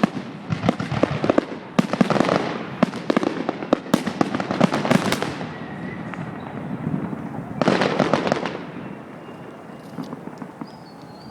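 Fireworks display: a rapid, dense run of crackling bangs and pops for about the first five seconds, a pause, then another short volley of cracks about eight seconds in, after which the display dies down.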